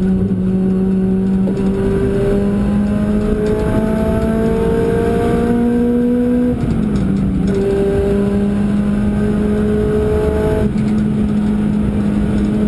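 Car engine heard from inside the cabin, accelerating up through the gears: its note climbs, drops at an upshift about six and a half seconds in, climbs again and drops at a second upshift near the end, over heavy road and wind noise.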